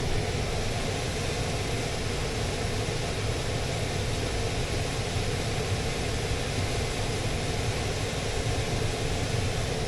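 Central air conditioning system running with a steady, even hum and rush of air from its blower, just restarted on a new control fuse that has not blown.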